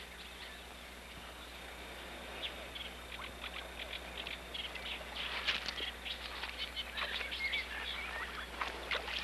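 Goslings peeping: a quick, uneven string of short high peeps that starts about two and a half seconds in and grows busier, with a few brief sliding calls mixed in.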